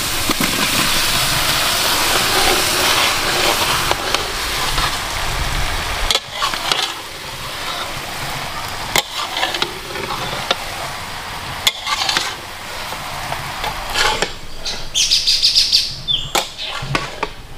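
Boiled taro pieces going into a hot pan of frying spice paste, sizzling loudly for about six seconds. After that, a spatula stirs and scrapes the pan, knocking against it every few seconds.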